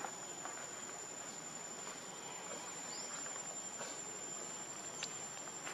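Steady high-pitched insect drone over faint outdoor hiss, with a brief rising chirp about three seconds in and a soft click near the end.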